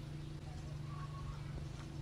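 Small birds chirping and whistling in short calls over a steady low hum.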